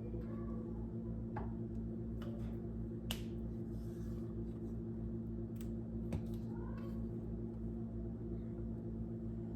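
Steady low electrical hum, with a few sharp light clicks and faint scrapes of a utensil spreading icing on a cake.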